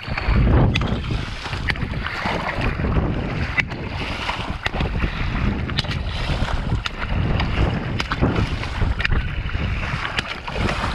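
Shallow water splashing and sloshing close to the microphone, with many small sharp splashes. A low wind rumble on the microphone runs underneath.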